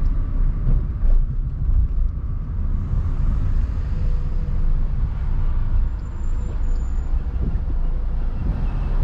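A car driving on city streets: a steady low rumble of engine and road noise.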